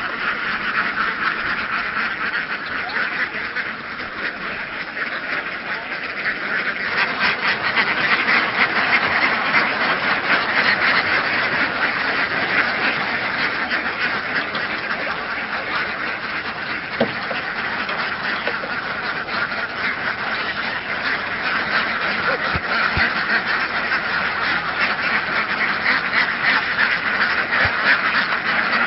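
A large flock of domestic laying ducks quacking continuously in a dense chorus, growing fuller and louder about seven seconds in.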